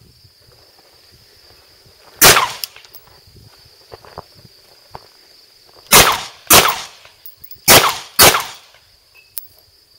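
Five 9mm pistol shots: a single shot, then after a pause of about three and a half seconds two quick pairs, the shots in each pair about half a second apart.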